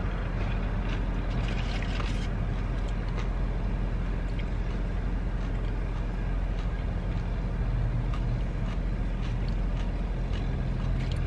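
Steady low vehicle drone with an even hiss, with soft chewing clicks through it, most in the first couple of seconds.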